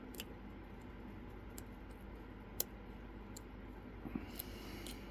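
Small, sharp metal clicks of a lock pick working the pin stack of a Mul-T-Lock padlock, scattered and irregular, with the loudest click about halfway through and a few close together near the end.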